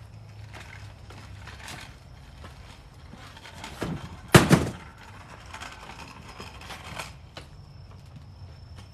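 Scattered knocks and clatter of things being moved around a garage, with one loud thunk a little over four seconds in.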